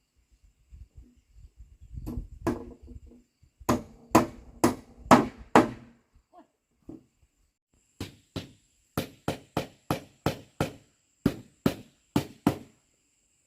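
Hammer blows: a first run of strikes that ring with a pitch, then about a dozen sharper, evenly paced strikes at roughly two to three a second.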